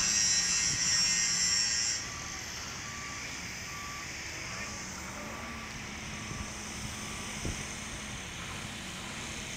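Truck-mounted mobile crane working a lift: its engine hums steadily while a warning alarm gives short, evenly spaced beeps, about one and a half a second. A loud high-pitched hiss cuts off about two seconds in, and a single sharp click comes near the end.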